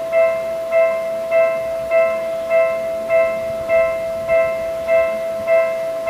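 Japanese level-crossing electronic warning bell ringing, a steady chime repeating about every 0.6 seconds, which signals that the barriers are down and a train is coming.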